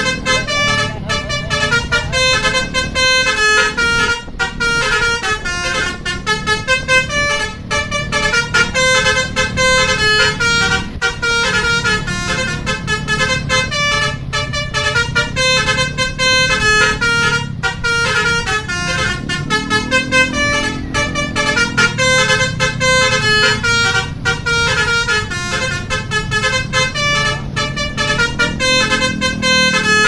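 Tourist coach's telolet musical air horn playing a fast, unbroken melody of short notes that hop between pitches several times a second, over the low running of the bus's engine.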